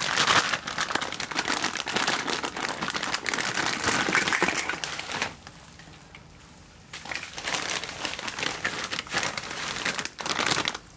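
Clear plastic bags and bubble wrap crinkling and crackling as they are handled. The crinkling is dense for about five seconds, drops off for a second or two, then starts again.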